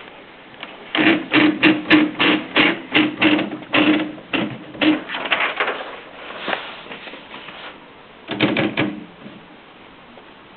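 Mercedes Superba typewriter typing: a run of sharp key strikes at about three to four a second for several seconds, then a short, quick flurry of clicks near the end.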